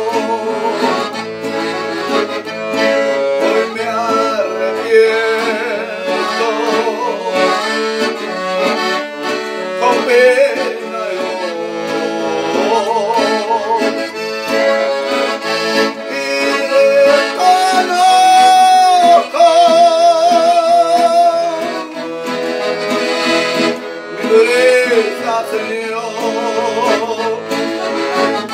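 Piano accordion playing a melody, with an acoustic guitar accompanying it.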